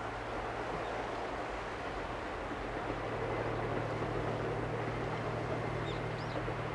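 A steady low engine hum under a broad rushing noise that swells slightly about three seconds in, with a few faint bird chirps near the end.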